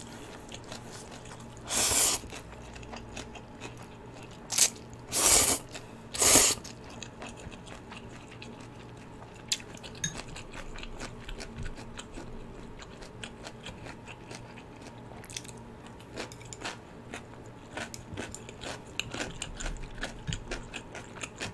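Spicy instant ramyun noodles slurped in several short, loud bursts over the first six seconds or so, then steady chewing with many small wet clicks.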